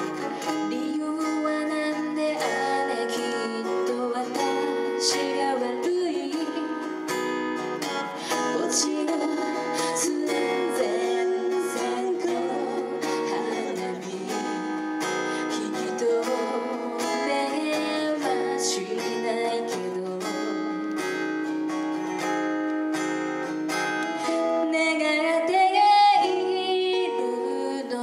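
A song performed live: plucked acoustic strings accompanying a singing voice.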